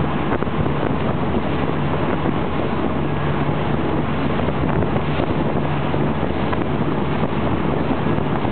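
Motorboat running at speed: a steady engine drone under wind buffeting the microphone and the rush of the wake.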